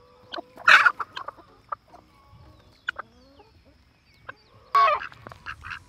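A flock of chickens clucking, with two louder calls, one about a second in and one near the end, and softer chirps and clucks between them.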